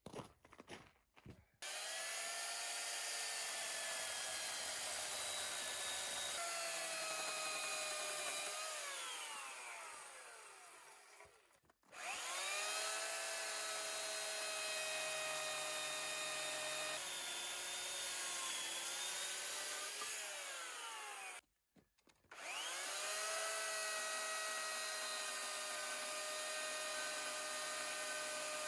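Electric drill boring holes in a hardwood log for shiitake spawn plugs: three runs, each spinning up to a steady whine whose pitch drops as the bit bites into the wood. The first two runs wind down with a falling pitch, and the third runs on to the end.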